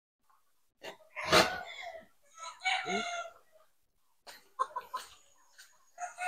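A rooster crowing about a second in. A few short clicks follow, and another chicken call begins near the end.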